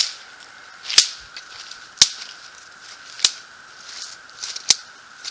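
Small campfire of partly wet sticks crackling, with five sharp pops spread about a second apart.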